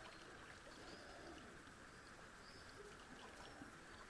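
Near silence, with faint bird calls in the background.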